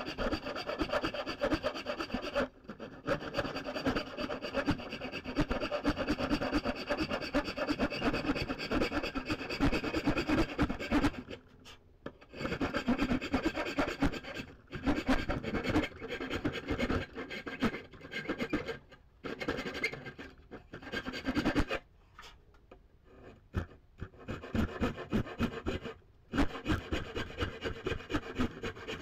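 A hand tool worked on maple handle wood in rapid back-and-forth scraping strokes, stopping briefly several times, most clearly for about two seconds a little past the middle.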